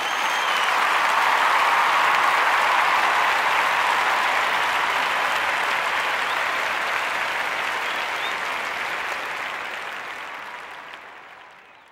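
A group of people applauding: steady, dense clapping that swells in over the first second or two and then fades slowly away to nothing at the end.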